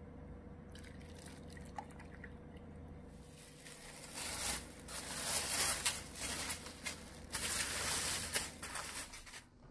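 Liquid pouring and splashing in the kitchen, irregular and uneven, starting about three seconds in and cutting off just before the end.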